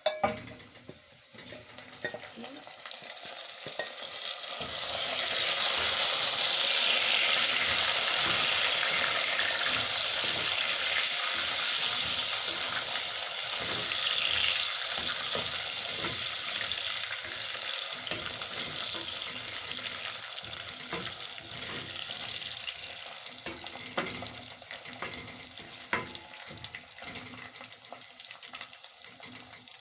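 Boiled beef sizzling in hot oil with fried onions, ginger and garlic in a sufuria. The sizzle swells about five seconds in and then slowly dies down, with a few sharp clicks near the end.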